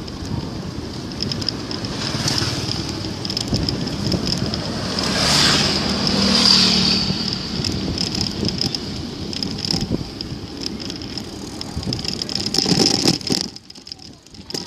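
Continuous wind and road noise from riding a roadster bicycle, with a motor vehicle passing about five to seven seconds in. The noise dips briefly near the end.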